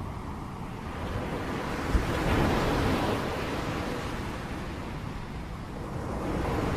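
Rain hissing with wind, swelling about two seconds in and again near the end, with a brief low thump as it first swells.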